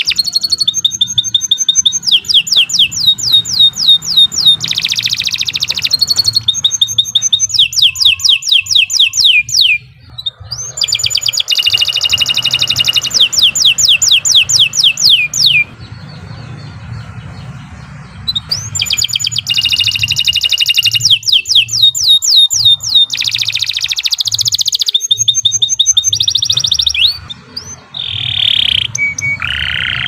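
Domestic canary in full song: long runs of fast trills, each made of rapidly repeated falling notes. There is a brief pause about ten seconds in and a longer one around sixteen seconds, and short broken phrases come near the end.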